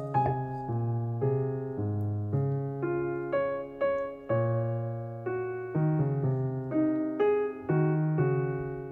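Background piano music: a slow, gentle tune of single notes and chords, each note struck and then fading.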